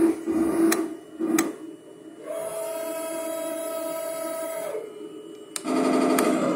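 Heng Long 1/16 scale RC M1A2 Abrams tank running on the floor. A pulsing engine-type sound with two sharp clicks gives way to a steady whine for about two and a half seconds as the turret traverses, and a louder rhythmic mechanical sound starts near the end.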